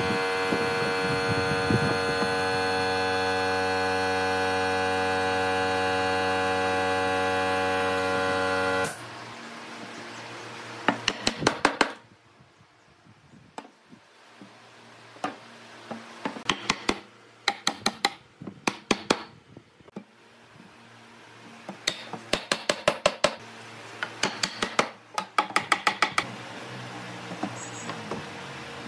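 An electric workshop machine's motor hums steadily and cuts off about nine seconds in. Then come short bursts of quick taps on wood, four to eight strikes at a time, several times over.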